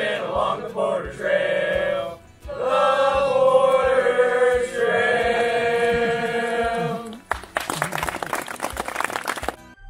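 A group of voices singing a voyageur-style folk song together, holding long notes over a steady low beat. About seven seconds in the song ends and the audience applauds.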